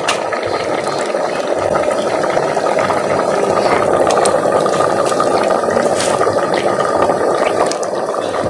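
Chickpeas boiling hard in a clay handi, a steady bubbling with scattered crackles, as melted ghee is poured into the pot.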